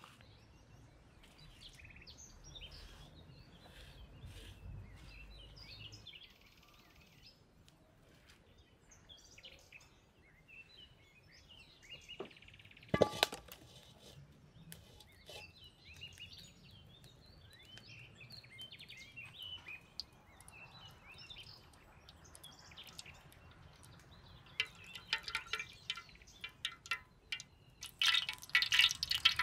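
Birds chirping faintly in the background, with a single sharp knock about halfway through. Near the end, hot oil in a wok begins to crackle and sizzle, getting loud in the last seconds.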